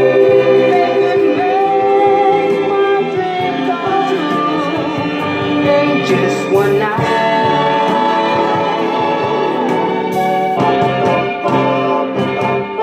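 Music from a vocal group recording: long held, wordless singing notes in layers over a backing band, with no lyrics sung.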